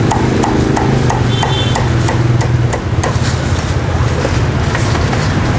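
Meat cleaver chopping crispy roast pork on a thick wooden chopping block in quick, even strokes, about three a second.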